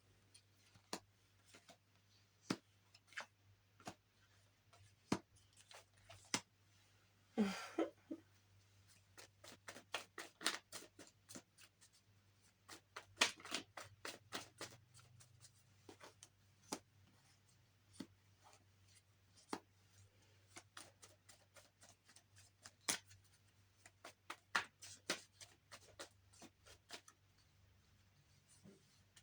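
Cards being handled and shuffled: many light, irregular clicks and taps, with one longer rustle about seven seconds in.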